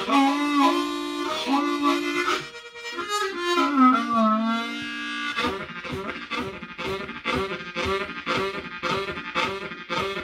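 Diatonic blues harmonica playing a train imitation. It opens with held, bending chords like a train whistle, the last one sliding down in pitch. About five seconds in it breaks into a steady rhythmic chugging.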